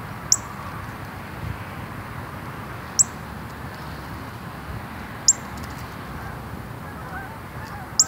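Northern cardinal giving sharp, high chip calls: four short notes about two and a half seconds apart, over a steady background hiss.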